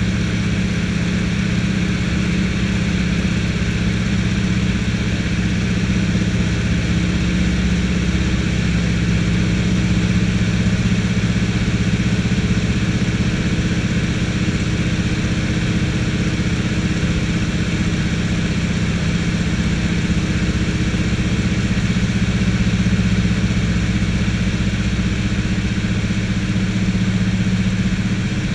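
De Havilland Beaver's nine-cylinder Pratt & Whitney radial engine running steadily at low power, heard from inside the cockpit as the floatplane taxis on the water.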